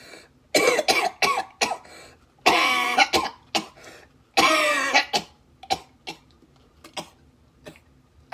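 A man coughing in fits from the burn of hot, spicy shrimp: a quick run of short coughs about a second in, then two longer, louder hacking coughs, followed by a few faint short clicks.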